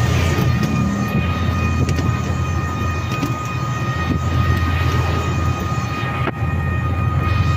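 Riding noise on a small electric bike: a steady low rumble of wind on the microphone and tyres on concrete, with a thin steady whine over it.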